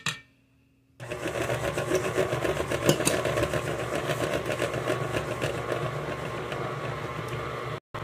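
Electric mixer starting about a second in and running steadily at speed, beating milk into cake batter, after a couple of short clinks. Near the end it drops out for an instant and comes back quieter.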